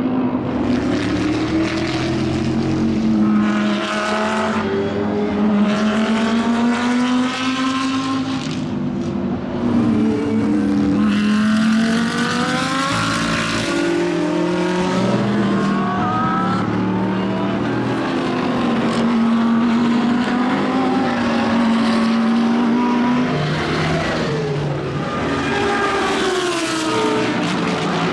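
Lamborghini Huracán GT3 race car's naturally aspirated V10 at racing speed, its note climbing and dropping again and again through acceleration, gearshifts and braking.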